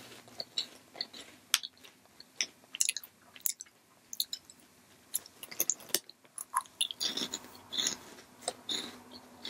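Crunching and chewing of banana-syrup-glazed corn puffs: a scatter of short, crisp crackles, growing denser and a little louder near the end.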